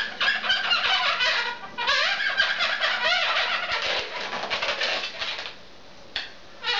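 Latex modelling balloon squeaking under a marker pen as circles are drawn on it: a dense run of quick, wavering high squeaks for about five seconds, then a quieter pause and one short squeak near the end.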